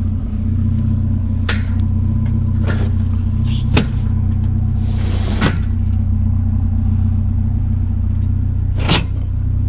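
Vehicle engine idling steadily, with several short sharp knocks spread through, one every second or two.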